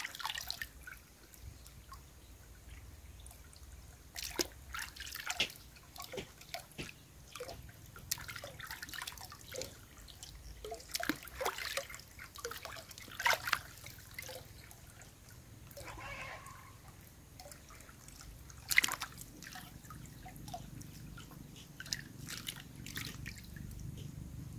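Water sloshing, splashing and dripping in a plastic basin as a plucked chicken is rinsed by hand, with a hose trickling water into the basin. The splashes come in irregular short bursts.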